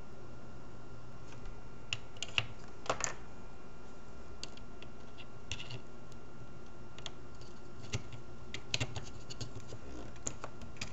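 Small metal and plastic air-rifle trigger parts clicking and tapping as they are handled and fitted into the plastic receiver, in scattered light clicks, with small clusters about two to three seconds in and near the end, over a steady faint hum.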